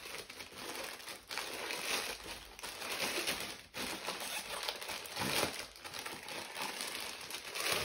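Wrapping being crinkled and pulled open by hand: continuous, irregular rustling as a printed paper-wrapped package is unwrapped.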